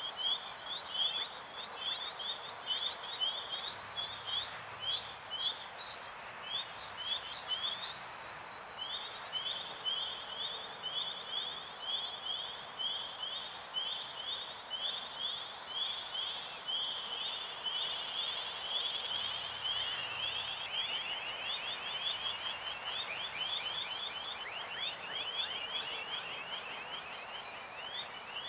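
Electronic, insect-like soundscape: a steady high tone with quick downward chirps repeating a few times a second over a soft hiss. About twenty seconds in, the chirps crowd together and slide a little lower.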